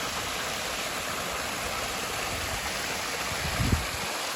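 Newly built garden pond waterfall running, water pouring over stone into the pond with a steady, even rush. A brief low bump near the end.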